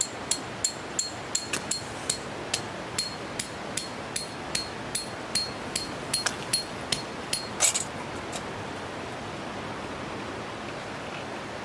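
A run of sharp, ringing metallic taps, about two to three a second, the same object struck each time, stopping about eight seconds in, over a steady rushing background.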